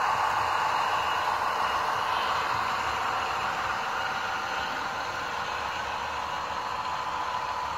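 Märklin H0 model train rolling past on metal track: a steady running noise of wheels and motors that slowly fades as the train moves away.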